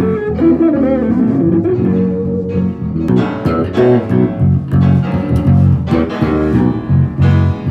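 Electric guitar and bass guitar played together live, a continuous run of notes over a loud, low bass line.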